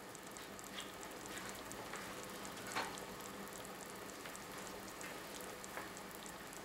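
Faint sizzling and crackling of hot pan juices and adobo sauce around a pork loin fresh from the oven in a glass baking dish, with a soft click about three seconds in.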